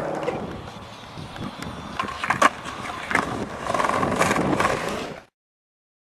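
Skateboard wheels rolling on pavement with a few sharp clacks of the board, then the sound cuts out completely about five seconds in.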